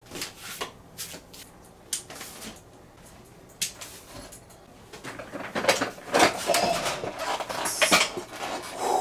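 Scattered clicks and knocks of objects being handled, a few at first and then busier and louder over the last few seconds.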